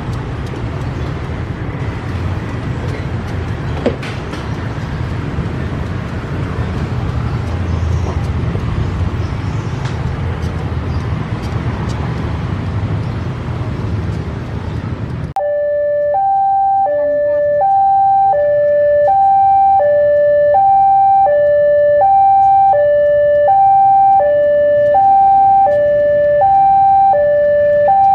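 Diesel locomotive engine running with a steady low rumble. About halfway through this cuts to a loud level-crossing warning alarm: an electronic two-tone signal alternating high and low about every half second, sounding as a train approaches the crossing.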